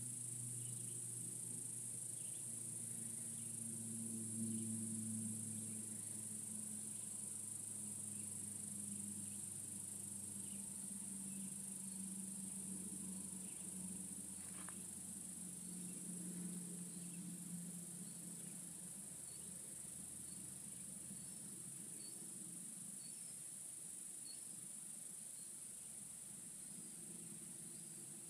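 Insects droning steadily at a high pitch, over a faint low hum that weakens in the last third, with scattered faint short chirps.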